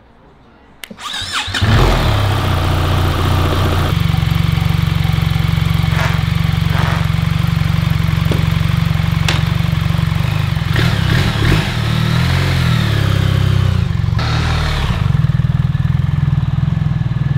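A 2024 BMW R 1300 GS's boxer twin engine is started on the button: a short crank about a second in, then it catches and runs. It holds a steady note, then changes in pitch near the end as the bike pulls away.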